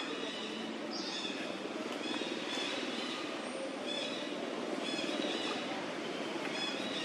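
Outdoor forest ambience: short, high chirping calls repeat every second or so over a steady low hum.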